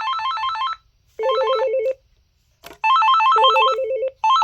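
Cordless phone handset ringing loudly as it is paged from its base, an electronic warbling ring in bursts under a second long, each a fast trill between two pitches, stepping between lower and higher tones.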